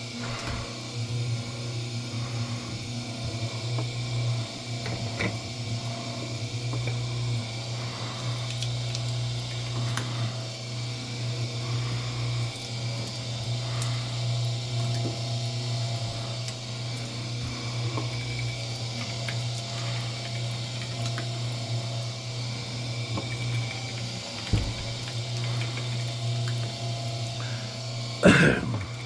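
Electric wire stripping machine's motor running with a steady hum, with a few light clicks and a short louder knock near the end.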